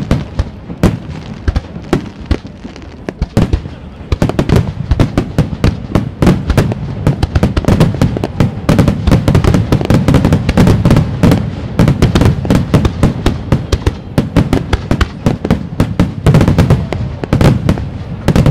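Aerial firework shells bursting. Scattered bangs at first, then from about four seconds in a dense, rapid run of crackling reports over a continuous low rumble of booms.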